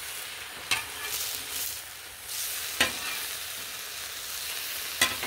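Pastrami slices sizzling on the hot steel plate of a Blackstone griddle, a steady hiss. A metal spatula clicks against the plate three times, the last two clicks the loudest.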